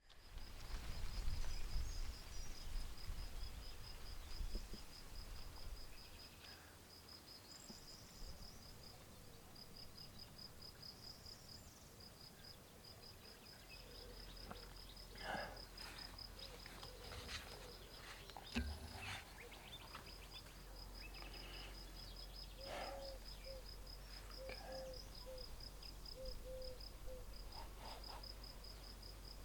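Rural outdoor ambience: insects chirping in a steady high-pitched pulse, about five chirps a second, with birds calling now and then in the second half. Low rumble in the first few seconds.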